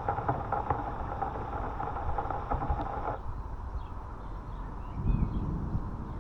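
Steady rain pattering, which cuts off abruptly about three seconds in. It gives way to a quieter background with faint bird chirps and a brief low rumble near the end.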